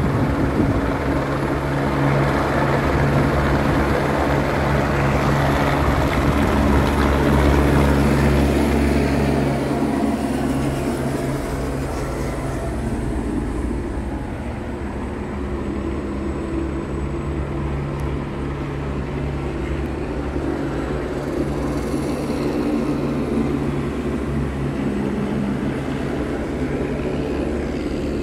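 Helicopters flying overhead: a steady drone of rotors and engines, loudest for the first nine seconds or so, then a little fainter.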